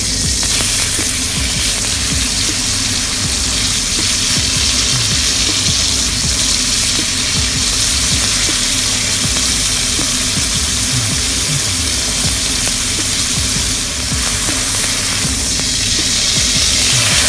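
Beef steak sizzling steadily in hot oil in a steel pan as it is lifted and turned with tongs.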